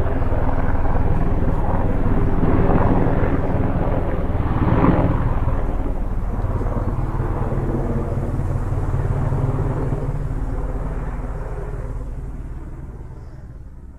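Helicopter running steadily, with a rapid low rotor beat and engine drone. It swells about five seconds in, then fades away over the last few seconds.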